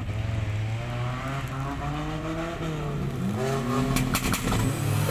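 Small Suzuki Katana 4x4's engine working at low revs on an off-road section, its pitch rising about three seconds in as it is revved. A brief cluster of sharp clatters comes about four seconds in.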